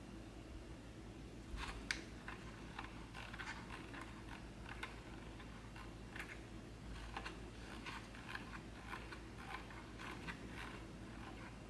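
Faint, irregular clicking of the rotary control dials on a Neewer RGB660 LED panel light as they are turned step by step. The clicks start about a second and a half in, with the loudest near two seconds.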